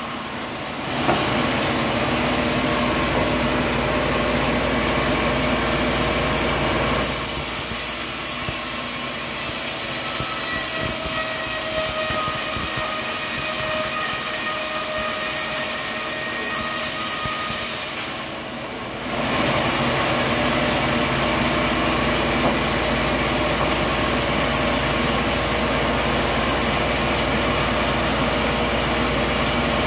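Sawmill machinery running: a loud, steady mechanical din with a few held tones. It changes character about a second in, again about seven seconds in, and once more around eighteen to nineteen seconds in.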